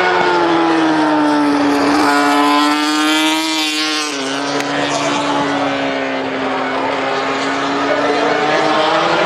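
Racing motorcycle engines running at high revs along the track, one passing by with its pitch dropping about four seconds in.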